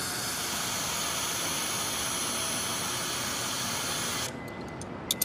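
Steady loud hiss, like rushing air or machine noise, that cuts off suddenly about four seconds in. A quieter background follows, with a couple of sharp clicks near the end.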